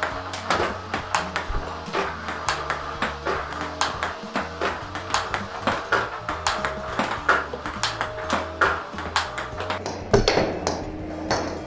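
Table tennis forehand rally: the celluloid-type ball clicks off the rubber-faced racket and bounces on the table in a quick, even rhythm, several hits a second. Background music plays underneath.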